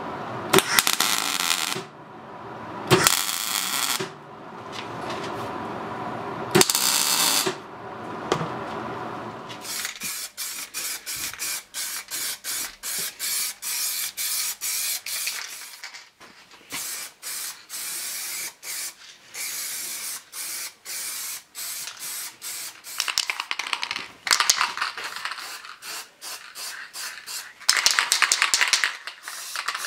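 Three short bursts of MIG welding arc crackle. Then an aerosol spray paint can is shaken, its mixing ball rattling about four times a second. Near the end come two spells of spray paint hissing out of the can.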